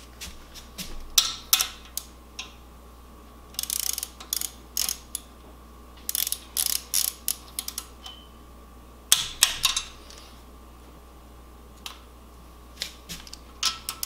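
Hand ratchet clicking in short rapid bursts, with pauses between, as the bedplate bolts of a BMW N54 engine are turned down one after another.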